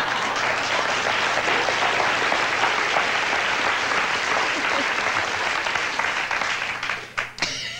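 Studio audience applauding, a dense steady clapping that fades out near the end.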